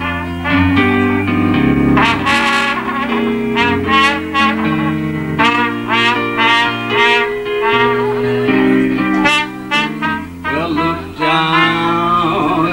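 Trumpet playing a slow jazz melody over piano chords and bass notes. Near the end a man's voice comes in singing.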